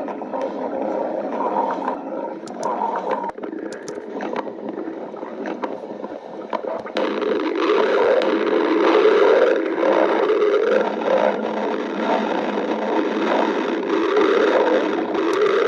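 A person's stomach growling and gurgling in one long continuous rumble that wavers in pitch and grows louder about halfway through.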